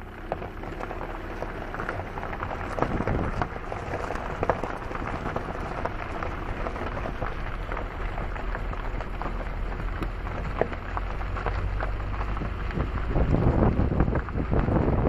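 Train rolling slowly into a station: a steady rumble from the running gear with scattered rattling clicks, and wind buffeting the microphone. It grows louder near the end.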